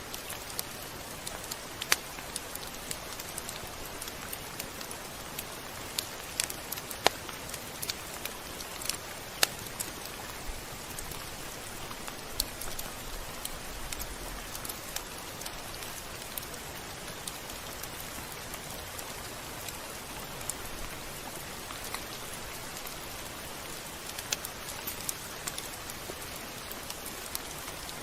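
Steady rain falling on a surface: an even hiss with scattered sharp, louder drop impacts.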